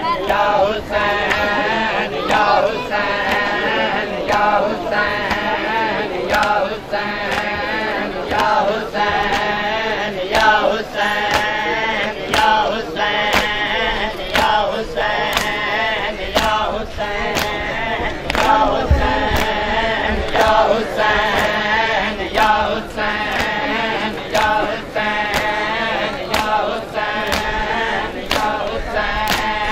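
A crowd of men chanting a mourning lament together, with sharp hand strikes on bare chests (matam) keeping a steady beat of about three every two seconds.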